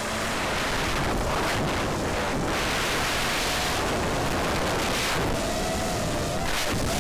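FPV racing quadcopter in flight, heard through its own onboard camera: steady loud rushing of wind and propeller wash, with a thin motor whine that wavers up and down in pitch with throttle in the second half.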